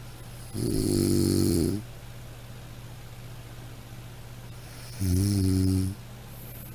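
Snoring: two snores about four and a half seconds apart, a longer one about half a second in and a shorter one about five seconds in, each a low pitched rumble.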